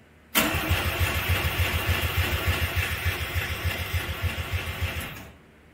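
Starter cranking the Mazda RX-7's 13B rotary engine in rapid, even pulses for about five seconds, then stopping abruptly without settling into an idle. This is the first start attempt on a newly fitted Weber 48 IDA carburetor.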